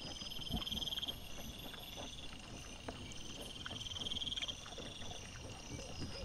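Wild boars and striped piglets feeding and rooting in leaf litter, making scattered soft clicks and rustles, over a steady high pulsing trill of night insects that swells twice.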